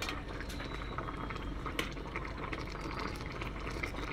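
Chicken afritada stew bubbling in tomato sauce in an electric cooking pot, with a metal ladle stirring through the potatoes and carrots and giving small scattered clicks.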